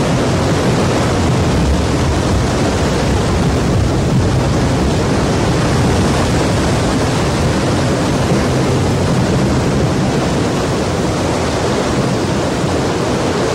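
Loud, steady rush of churning floodwater, an even roar of water with no breaks.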